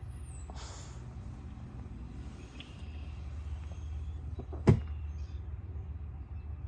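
Steady low rumble of a car's interior. A brief rustle comes about half a second in, and a single sharp click sounds a little before five seconds.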